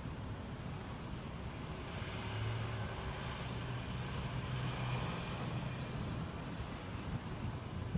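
Road traffic: a steady low rumble, with a motor vehicle passing and its engine hum swelling from about two seconds in and fading after five.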